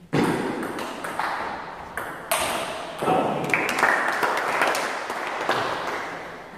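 Table tennis ball clicking off rubber-faced bats and bouncing on the table in a rally. The hits start sharply just after the opening, with the clicks ringing in a reverberant hall.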